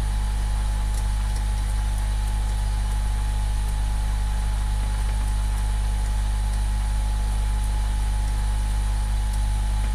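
A steady low mechanical hum with a faint constant whine above it, unchanging throughout, with a few faint ticks.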